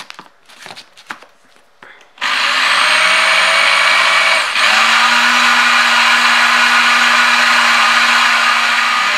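Countertop blender switched on about two seconds in, its motor whirring steadily as it blends dry sugar, milk powder and cocoa powder. About halfway through the sound briefly dips and picks up again at a slightly higher pitch as the speed control is turned. A few light handling clicks come before it starts.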